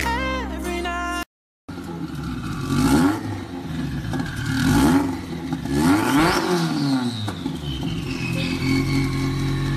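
Car engine sound: after a brief snatch of a pop song and a short dropout, an engine revs through three fly-bys whose pitch rises and falls, then a long falling engine note.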